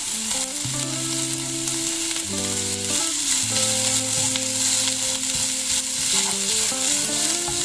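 Chopped vegetables (onion, spring onion and freshly added carrot) sizzling in hot ghee and oil in a pan while being stirred, a steady frying hiss.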